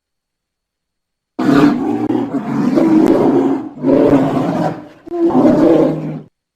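Bear roaring three times, starting about a second and a half in: a long rough roar, then two shorter ones in quick succession.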